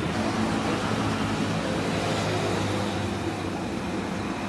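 Steady street traffic noise with a low engine hum and no distinct events.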